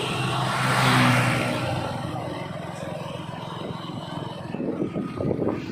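A motor vehicle passing close by: its engine and road noise swell to a peak about a second in, then fade away.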